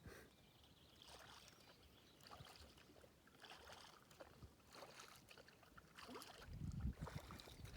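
Faint kayak paddle strokes, the blade dipping and splashing in the water about once a second. A louder low rumble comes in near the end.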